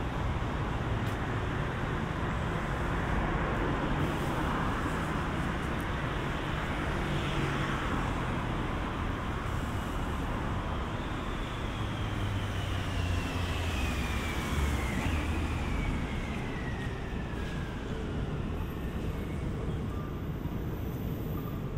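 City road traffic running past on a wet street: a steady wash of engine and tyre noise with a low rumble. In the second half a faint whine falls slowly in pitch.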